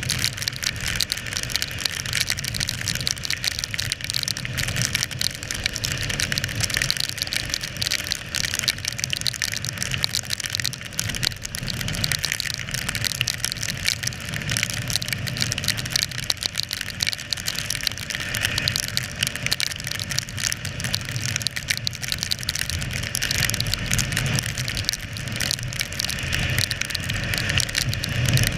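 Motorcycle at highway speed on a wet road: steady wind rushing over the camera's microphone, mixed with tyre hiss and spray from the wet surface and a low engine drone underneath.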